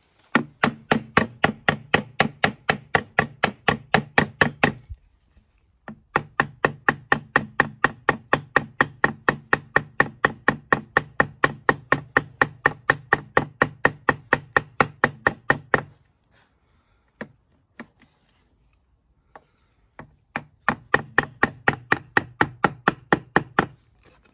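Wooden mallet tapping rapidly on the metal door of a vintage Ratner safe beside the handle, about five or six blows a second, in three long runs with a few single knocks between them, to jar the stuck handle and lock work free.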